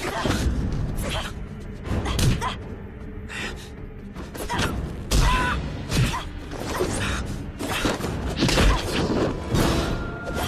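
Film fight soundtrack: dramatic score under a run of sudden punch and thud impact effects, about one every second or two, as two fighters trade blows.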